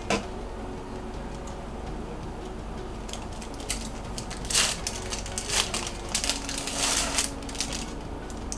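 A wrapper crinkling and rustling as it is opened by hand: a run of short crinkles from about three seconds in, loudest around the middle, after a single click right at the start.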